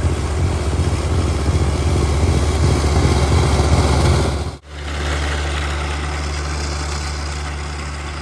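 John Deere 1025R compact tractor's three-cylinder diesel engine running with its front-mounted snowblower throwing snow. The sound breaks off sharply about halfway through. It then resumes as a steadier engine drone that slowly fades.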